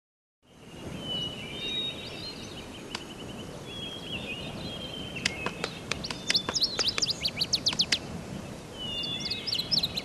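Wild birds chirping and trilling over a steady outdoor background noise, starting about half a second in, with a quick run of sharp chirps about five to eight seconds in.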